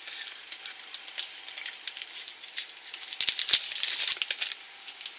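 Chocolate-bar wrapper crinkling in scattered crackles, with a louder flurry a little past halfway.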